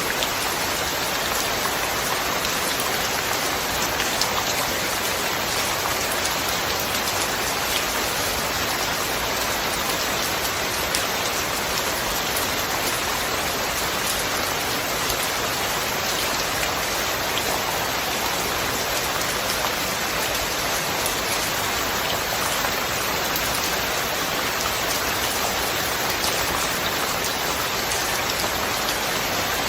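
Steady rain falling, an even hiss with the patter of many small drops, no thunder.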